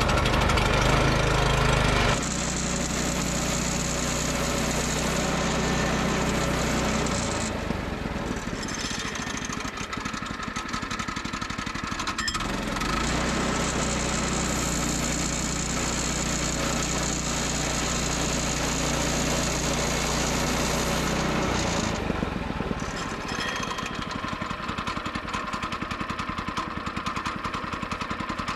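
Gas chainsaw bucking through a large cherry log, running at steady full throttle in two long cuts, dropping back between them and near the end.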